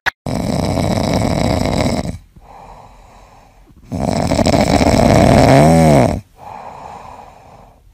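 A sleeping cat snoring loudly: two long snores about four seconds apart, with softer breaths between them. Near the end of the second snore a brief whistle rises and falls.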